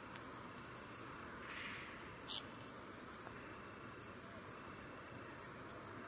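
Insect chirring: a very high-pitched, rapidly pulsing trill, steady apart from a brief break about two and a half seconds in. A couple of short faint calls sound around two seconds in.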